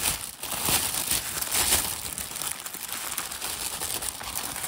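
Packaging crinkling and rustling in irregular handling bursts as a diamond painting kit is opened and its canvas unwrapped.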